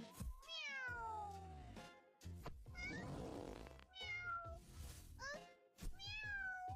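A kitten meowing about five times, faint and high-pitched. The first meow is the longest and falls in pitch.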